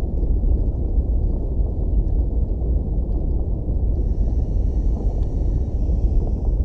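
Steady, low underwater rumble of reef water picked up by the camera, with a faint high whine over the last few seconds.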